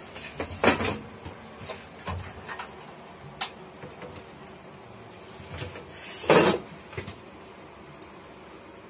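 Knocks and clicks of someone moving about at a desk, with a louder scrape about six seconds in.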